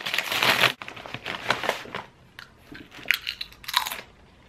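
A foil chip bag rustles briefly and stops abruptly, then kettle-cooked potato chips crunch and are chewed, with crisp bites about one second and three seconds in.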